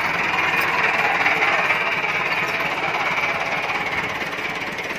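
Massey Ferguson 375 tractor's four-cylinder diesel engine running hard with a rapid, rough pulsing. It is loudest in the first couple of seconds and eases slightly towards the end.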